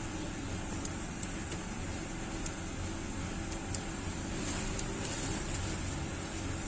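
Steady machine hum and hiss, like a fan running, with a few faint ticks.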